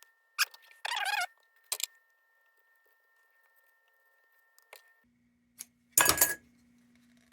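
Small metal lantern parts clinking and rattling as they are handled, in a few short bursts with a quiet stretch between; the loudest comes near the end.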